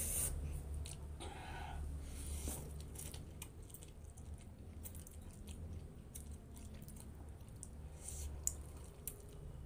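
Close-up chewing of a mouthful of instant noodles: soft, wet mouth clicks and smacks, over a low steady hum.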